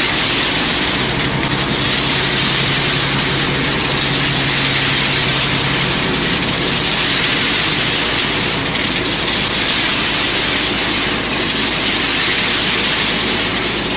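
ESF30 sand-and-stone separator, a concrete reclaimer, running steadily: machine noise from its motor and drum with wet gravel rattling through and pouring from the stone outlet. A low hum under it drops away about six seconds in.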